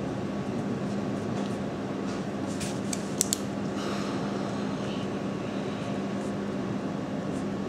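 Steady low room hum of an indoor shop, with two or three sharp clicks a little over three seconds in.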